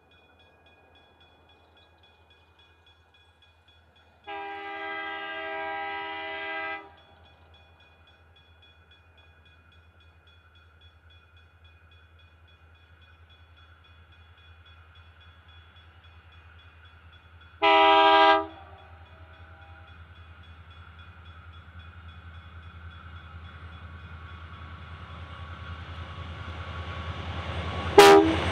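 Freight train of diesel locomotives approaching, its engine and rail noise growing steadily louder. The lead QR National LDP-class locomotive sounds its horn three times: a long blast about four seconds in, a short one at about eighteen seconds, and a brief toot near the end as it reaches the camera.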